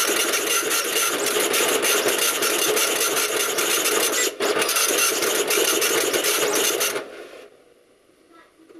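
PSI PP-404 high-speed dot matrix printer printing: the print head makes a loud, rapidly pulsing buzzing rasp, line after line. It dips briefly about halfway through and stops abruptly near the end as the printer goes offline.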